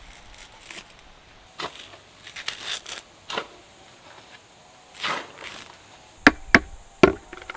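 Dry coconut husk being torn apart by hand, its coir fibres ripping in short, scratchy bursts. Near the end come three sharp knocks in quick succession, the loudest sounds.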